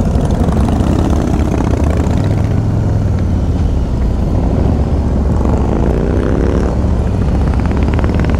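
Harley-Davidson V-twin motorcycle engines running steadily while riding in a group; about five seconds in, an engine's pitch rises as it accelerates.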